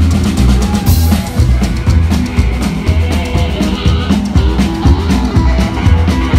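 Live rockabilly band playing an instrumental passage: slapped upright bass and drum kit keeping a steady, driving beat, with electric guitar. There is a cymbal crash about a second in.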